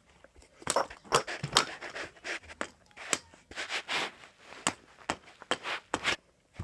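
A rapid, irregular run of short scuffs, rustles and breathy puffs as plastic dolls are handled and knocked about on carpet.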